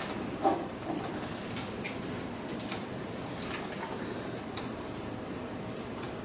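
Scattered, irregular clicks of laptop keyboards being typed on, over a steady background hiss of the room, with one louder short knock about half a second in.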